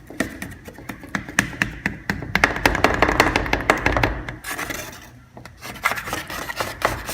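Utensil tapping and scraping against a dish as casserole is cut and served, a dense run of quick clicks in the middle.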